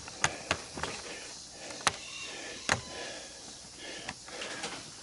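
A few sharp clicks and knocks as metal washing-machine parts are handled and moved, the sharpest about two seconds in, then a quieter stretch.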